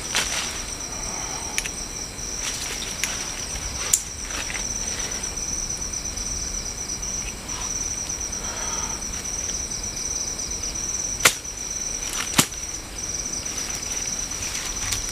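Night insects, crickets, chirring steadily in a high, fast-pulsing tone, with dry leaf litter rustling as hands search through it and a few sharp clicks, the loudest two about 11 and 12 seconds in.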